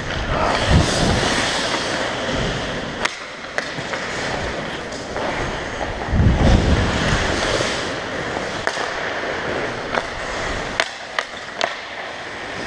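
Ice skate blades scraping and carving on the rink, close and loud from a helmet-mounted camera, with sharp clacks of hockey sticks hitting the puck and ice scattered throughout. Two heavier surges of scraping come about half a second in and around six seconds in.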